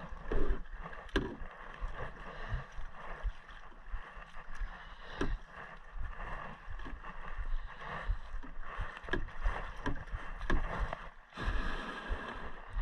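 Kayak being paddled with a double-bladed paddle: irregular splashing strokes about once a second over water lapping against the hull. Near the end a longer rush of noise as the hull runs up onto a gravel beach.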